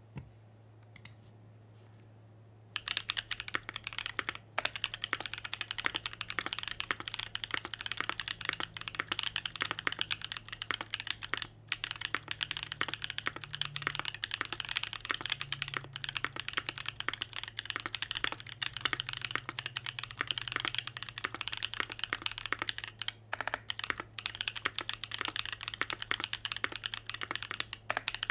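Fast typing on a Krush65 mechanical keyboard with an aluminium plate in top mount, stock Cheesecake switches and GMK Norse ABS double-shot keycaps. A couple of single key presses come first, then about two and a half seconds in a dense, continuous run of key clacks starts, broken by a few brief pauses. A faint steady low hum sits underneath.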